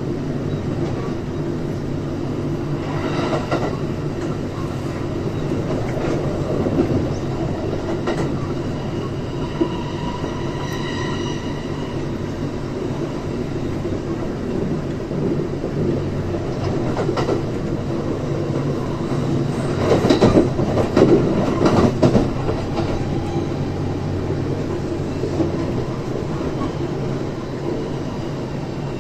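Kintetsu 3220 series electric train running between stations, heard from inside the car: a steady rumble of wheels on rail, with a faint high squeal about ten seconds in and a louder clatter about twenty seconds in.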